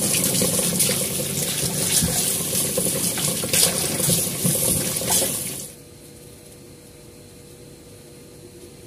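Kitchen tap running into a stainless steel sink while cucumbers and tomatoes are rinsed under the stream, the water splashing off hands and produce. The water sound cuts off suddenly a little over halfway through, leaving quiet room tone with a faint steady hum.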